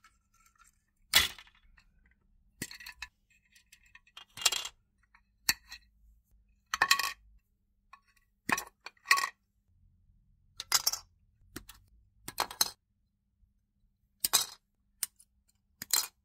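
Sprue cutters snipping plastic model-kit parts off the sprue: about a dozen sharp snaps at irregular intervals, some in quick pairs.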